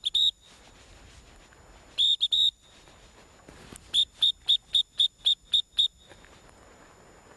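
Dog-training whistle blown in short, shrill toots: two at the start, three about two seconds in, then a run of eight quick toots, about four a second. It is a retriever handler's whistle, the repeated toots calling the dog in.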